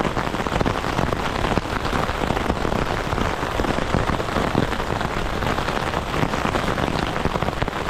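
Very heavy rain beating on tent fabric, heard from inside the tent: a dense, steady patter of countless drops.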